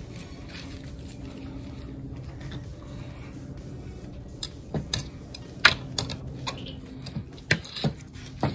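Sharp metal clicks and clinks, about eight of them in the second half, as a rotisserie spit and its meat forks are fitted into a turkey breast and knock against a metal sheet pan. A low steady hum runs underneath.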